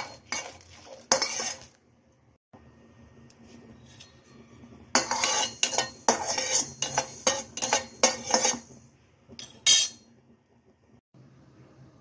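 A spatula scraping and clinking against a metal pan as garlic cloves and dried red chillies, then mustard seeds, are stirred. It comes in two spells: a short one at the start, and a longer, busier one from about five seconds in, ending in one sharp clank just before ten seconds.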